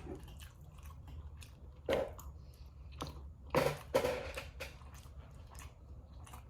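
Close-miked chewing and mouth eating sounds from a mukbang meal, with a few louder bites or smacks about two seconds in and again near the middle.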